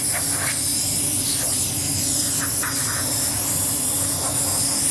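Compressed-air blow nozzle hissing steadily as it blows across wet paint on a guitar body, pushing the still-wet colours into a marbled structure.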